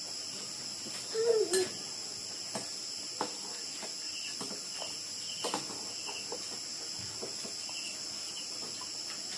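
Steady, high chirring of a night cricket and insect chorus, with occasional clinks of spoons and chopsticks against bowls and a brief vocal sound about a second in.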